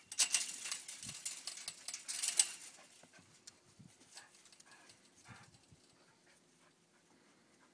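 Chain-link fence rattling as a dog climbs it: a rapid run of clattering for the first couple of seconds, loudest near the end of that run, then only scattered light clicks.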